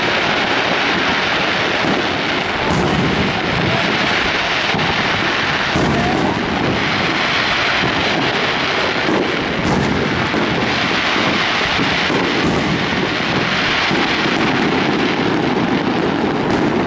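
Aerial fireworks display heard from a distance: a steady rumbling wash of noise from the shells and their echoes, with a few faint bangs of shells bursting.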